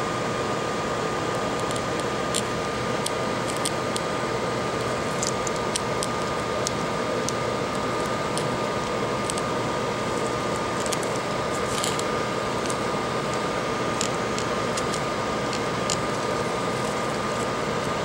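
Steady fan hum with a thin high whine, and faint scattered ticks as metal tweezers work on the connector.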